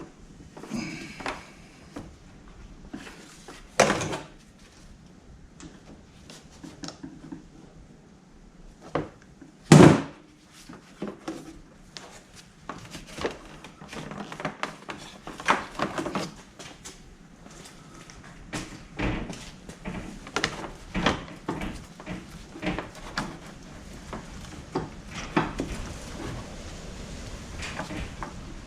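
Irregular clicks and knocks of hand tools and parts being handled while working on a snowmobile, with a heavy knock about ten seconds in.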